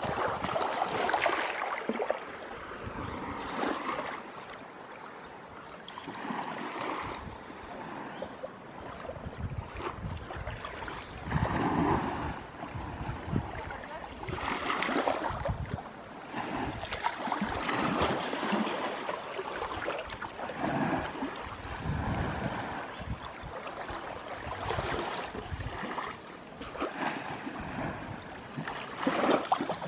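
Small waves of a calm sea lapping and washing against the shore, in soft swells that come and go every few seconds.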